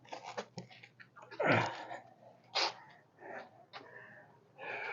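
Scattered light clicks and clinks from hand tools at the shock mount. About a second and a half in, a man gives a loud, breathy vocal burst that falls in pitch.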